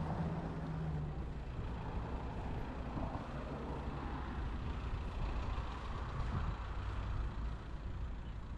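Road traffic passing, a heavy vehicle's engine making a steady low rumble.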